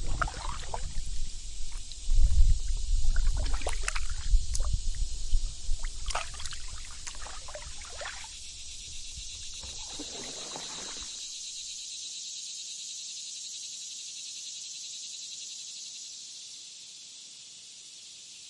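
Canoe paddle strokes splashing and dripping in the water, with a low rumble under them, over a steady high-pitched drone of summer insects. The paddling dies away about ten seconds in, and the insect drone carries on alone.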